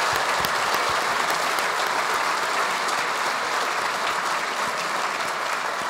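Audience applauding: dense, steady clapping that fades a little toward the end.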